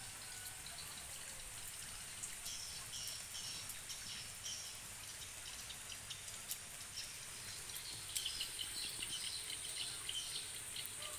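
Steady hiss of light drizzle, with birds chirping in two spells, a couple of seconds in and again over the last few seconds, and a faint high steady whine throughout.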